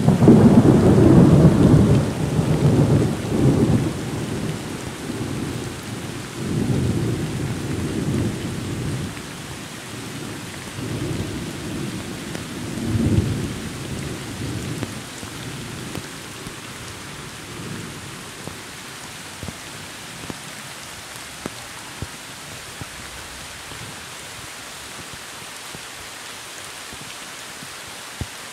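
A long peal of thunder breaks in at the start and rolls on in several swells, the last about thirteen seconds in, fading away by about sixteen seconds. Beneath it, steady rain falls on forest leaves, and a few single drops tick near the end.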